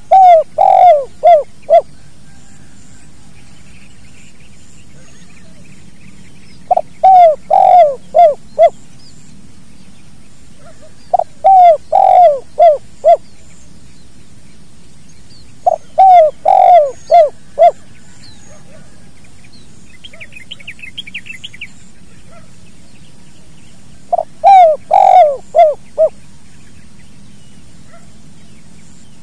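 Spotted dove cooing its song five times, a few seconds apart; each phrase is a run of several quick low coo notes lasting about two seconds. In a gap between phrases, a smaller bird chirps faintly and quickly.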